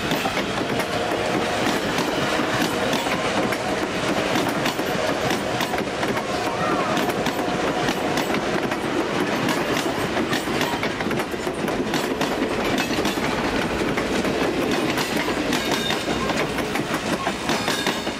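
Vintage passenger coaches of a steam excursion train rolling past close by: a steady rumble of wheels on rail with repeated clickety-clack over the rail joints.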